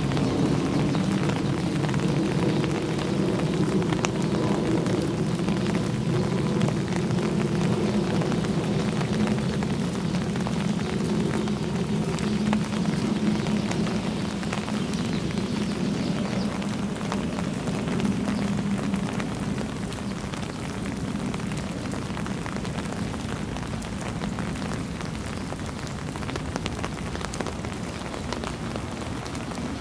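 Steady rain falling, with a low hum underneath that fades about twenty seconds in.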